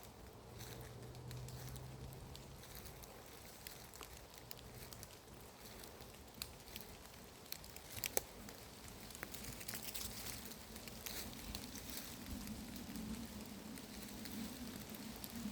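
Steady rain pattering, with scattered single drops ticking and a few sharper drops about eight seconds in. A faint low drone comes in near the end.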